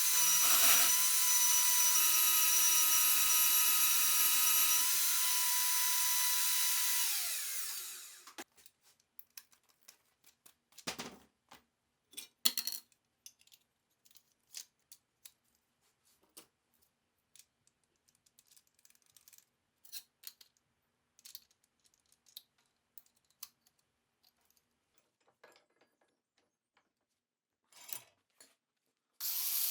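A power tool runs steadily with a high whine, then is switched off and spins down about seven seconds in. Scattered light clicks and knocks from handling parts follow, and the tool starts up again right at the end.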